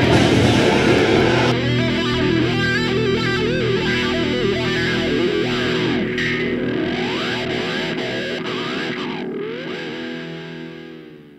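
Music led by distorted electric guitar with effects, its notes bending in pitch. It fades out over the last couple of seconds.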